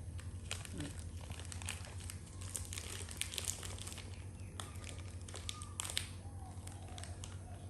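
Plastic packaging crinkling and rustling as it is handled, a run of irregular crackles over a low steady hum.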